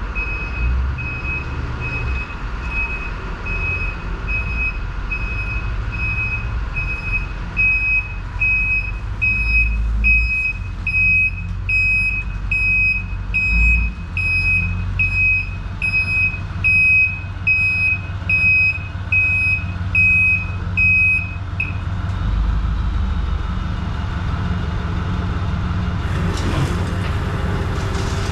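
A vehicle's reversing alarm beeping steadily over a running diesel engine, the beeps growing louder about a third of the way in and stopping about three-quarters of the way through while the engine keeps running.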